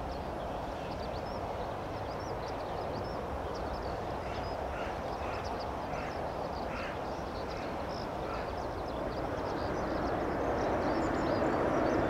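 Airbus A330 jet airliner's engines just after touchdown: a steady rushing noise that swells about ten seconds in. Crows caw several times in the middle.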